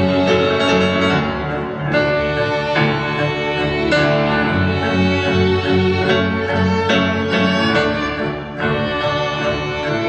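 Live string ensemble playing minimalist music: violins bowing sustained lines over a low figure that repeats in short pulses, the chords shifting every second or two.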